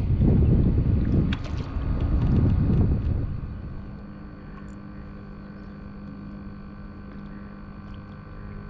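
Wind rumbling on the microphone for about the first three seconds, then dropping to a much quieter steady background with a faint low hum and a few small clicks.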